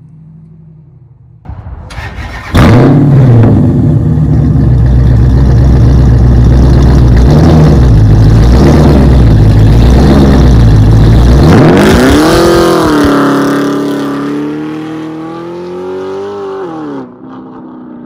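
A 6.5-litre stroker Hemi V8 with a custom exhaust in a Dodge Charger, very loud and deep as it runs hard close by for several seconds. Then the car pulls away at full throttle: the engine note climbs, dips once at a gear change, climbs again and falls away as the car recedes.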